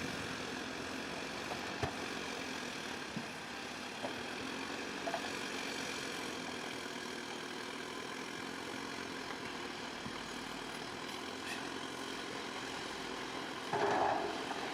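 Bulldozer's diesel engine running steadily, with a few light clicks, and a short louder sound near the end.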